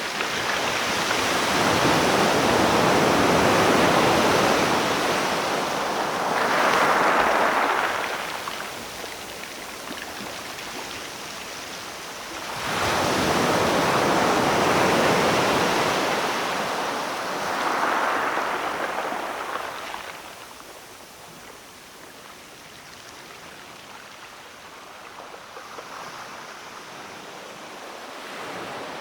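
Sea waves rolling in to shore: two large waves swell and break, each ending in a brighter wash, about ten seconds apart, then a calmer stretch with a smaller wave near the end.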